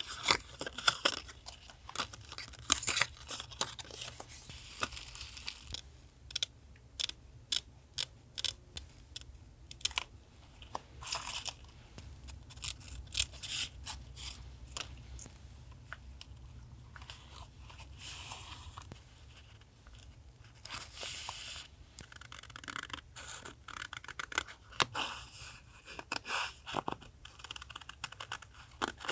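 Paper being handled close up for a collage: irregular crisp crackles, tears and snips of paper, one after another.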